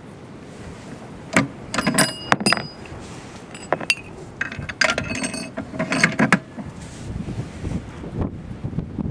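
Bolt of a 20 mm Anzio rifle being worked by hand: a run of sharp metal clacks and clinks, some briefly ringing, from about a second and a half in to about six and a half seconds in, as the action is cycled and the rifle reloaded between shots.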